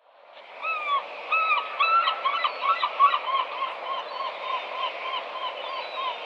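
A flock of birds honking. The sound fades in, and many short calls overlap thickly over the first few seconds, then thin to a steadier run of single honks, about two or three a second.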